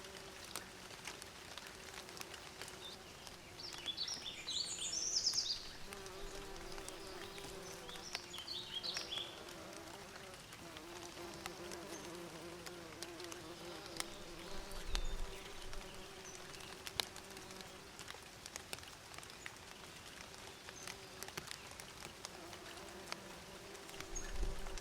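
Bees buzzing, a steady drone that swells and fades as they move about. Short bursts of bird chirping come in twice, about four and eight seconds in.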